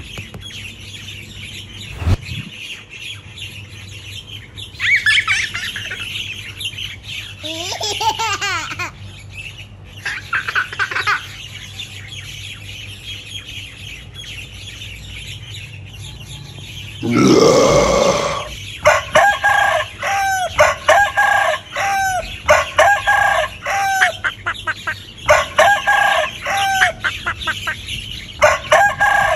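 Chickens calling: a loud call like a rooster's crow about two-thirds of the way in, then a run of repeated hen calls, about one a second. Earlier there are bird chirps and a single knock near the start, like a small hammer tapping a bamboo post.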